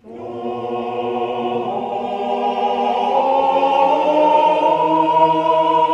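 Choral music: voices holding long, slowly shifting chords, starting abruptly.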